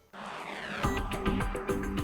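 Background music: a soft swell, then a beat with short repeated notes coming in about a second in.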